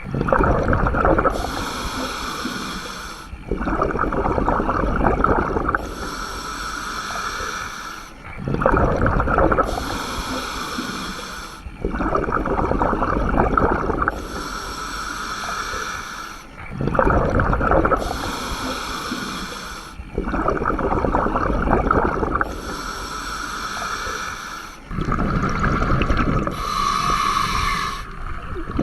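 A scuba diver breathing through a regulator underwater, about seven slow breaths: each inhale a hiss through the demand valve, each exhale a burst of bubbling from the exhaust.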